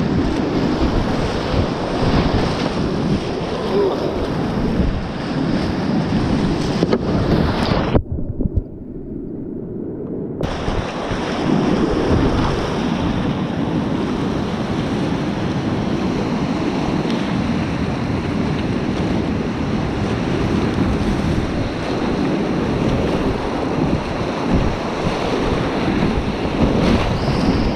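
Whitewater rapids rushing and splashing around a kayak, with water and wind buffeting the camera's microphone. About eight seconds in the sound turns muffled for about two seconds as water washes over the microphone, then the full rush of the rapid returns.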